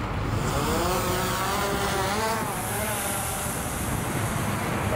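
Quadcopter drone's propellers running as it takes off and climbs, a whine whose pitch wavers up and down as the motors change speed.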